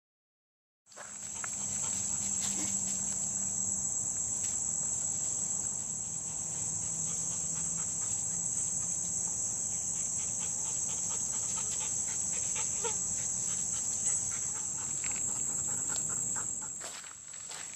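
Steady, high-pitched drone of a summer insect chorus in the woods, starting about a second in after a brief gap, with footsteps on the trail near the end.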